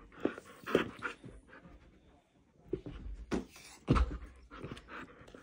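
Husky panting in short, uneven noisy breaths during a game of fetch, with a few sudden knocks and thumps, the loudest about four seconds in.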